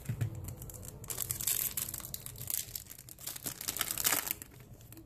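Foil wrapper of a Yu-Gi-Oh Premium Gold booster pack being torn open and crinkled by hand, a dense rustling crackle that grows louder about a second in and again near four seconds.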